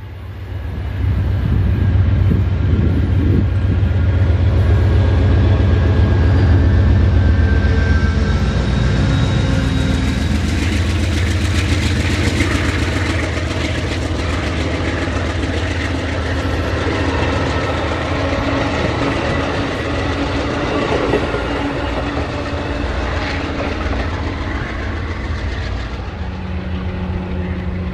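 Amtrak Empire Builder passenger train passing at speed. A diesel locomotive's steady low engine drone comes first, then from about ten seconds in the rolling clatter of the bi-level Superliner cars' wheels over the rail joints, easing slightly near the end.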